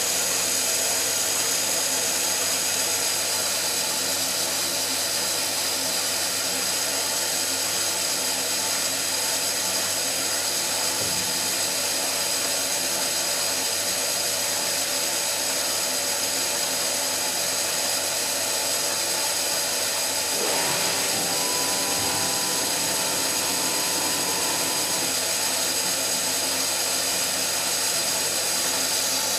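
Small Eudora Goldkind EU 340 washing machine running its wash cycle: a steady motor whine. A few extra tones join the whine for several seconds about two-thirds of the way through.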